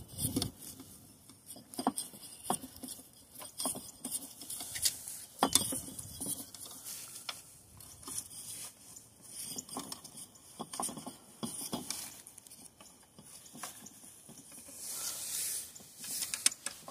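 A small Allen key tightening a bracket bolt on a Jeep Wrangler JL's windshield hinge: irregular light metal clicks and taps as the key is turned and reset on the bolt head, with a brief rustle about 15 seconds in.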